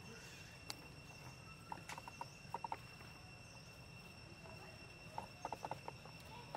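Faint outdoor ambience: a steady high-pitched insect drone, with three short runs of three or four quick clicks.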